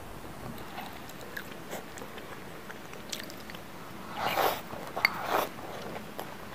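Close-up eating sounds: soft chewing clicks, then about four seconds in two loud slurps from a small bowl of spicy noodle soup held to the mouth, with a sharp click between them.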